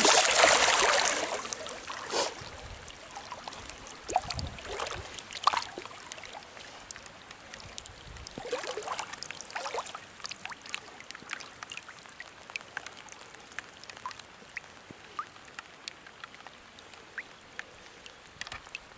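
Water splashing loudly for the first couple of seconds, then rain falling on a lake: a steady faint hiss with many scattered drop ticks, and a few louder splashes in the middle.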